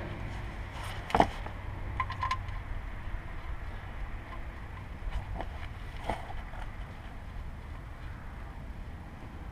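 A sharp metallic click about a second in, then a few lighter clicks and taps of metal being handled, as the oil-pan drain plug is threaded back in by hand and a wrench is picked up. A steady low rumble runs underneath.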